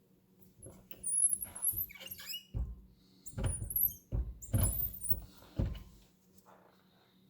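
Reloading press and die being worked while setting the crimp: high-pitched metal squeaks, then a run of about five dull thumps as the press is cycled.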